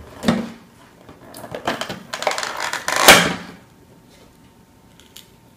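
A toy storage tin being handled as a part is pulled out of it: knocks and scraping, with the loudest clunk about three seconds in, then quiet.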